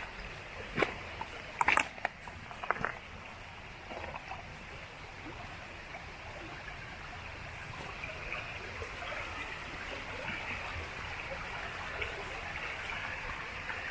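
Shallow rocky stream running, a steady rush of water that grows a little louder over the second half. A few short knocks of footsteps on the stony bank come in the first three seconds.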